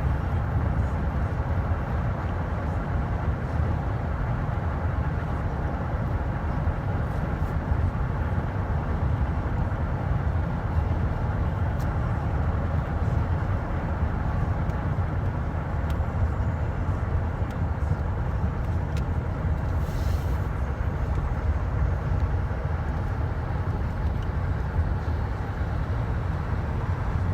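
Steady road and engine noise inside a moving car's cabin: an even low rumble with no horn blasts or other distinct events.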